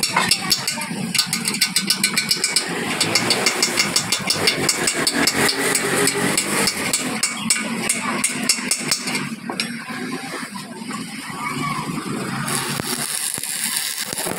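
Hammer striking a steel chisel against a truck's rear axle housing at the glowing weld, about four sharp metal-on-metal blows a second, stopping about nine seconds in. Near the end a stick arc welder strikes up with a steady crackling hiss.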